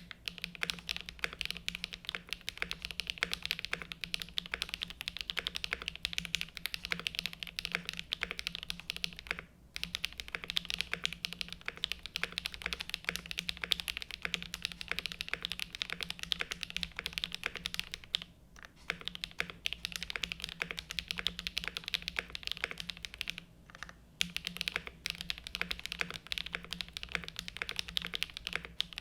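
Fast, continuous typing on a Zoom75 gasket-mount mechanical keyboard with stock-prelubed HMX Cheese switches, an aluminium plate and GMK Fuji keycaps. The typing breaks off briefly about ten, eighteen and twenty-four seconds in.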